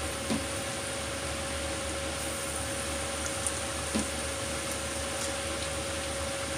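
Flour-coated chicken pieces frying in a pan of hot oil: a steady sizzle over a constant hum, with two light clicks of chopsticks, about a third of a second and four seconds in.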